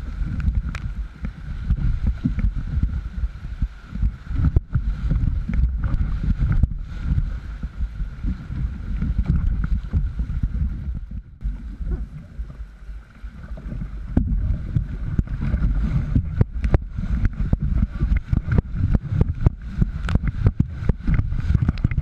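River rapids rushing around a canoe, with wind rumble on the microphone and frequent sharp splashes. The water noise eases for a couple of seconds near the middle, then builds again as the canoe runs into white water.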